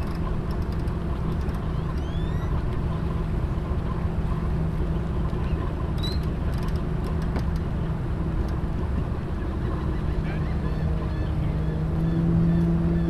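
An engine running steadily with a low, even hum that gets louder near the end.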